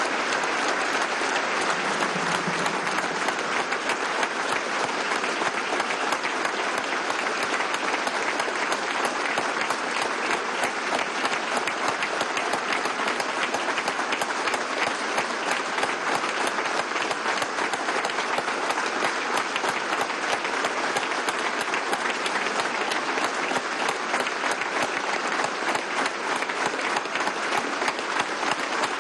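Crowd applauding steadily: a sustained minute of applause, many hands clapping at an even level throughout.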